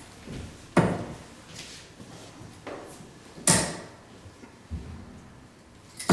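Steel-tip darts hitting a Winmau Blade bristle dartboard: three sharp thuds about two and a half seconds apart, the last right at the end.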